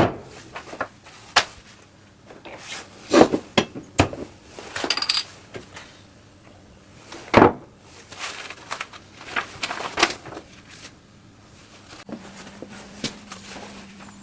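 Metal tools and parts clinking and knocking irregularly during workshop work, with a steady low hum starting near the end.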